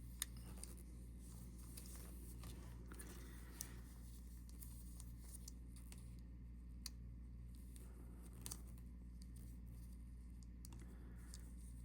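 Faint, sparse small clicks and scratches of a metal tool working the battery clips of a Casio module 248 watch movement, over a steady low hum.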